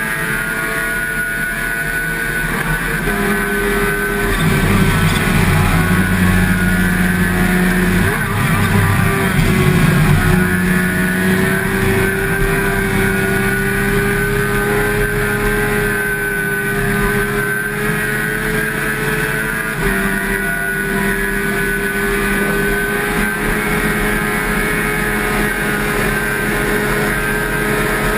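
Sport motorcycle engine running under way at a fairly steady speed, its pitch shifting in steps a few times as it changes gear, louder for a stretch in the first half, with steady wind rush over it.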